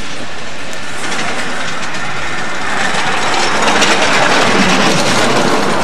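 A miniature live-steam locomotive running past with riders aboard: steam exhaust and wheels clicking on the rails, growing louder about three seconds in as it draws close.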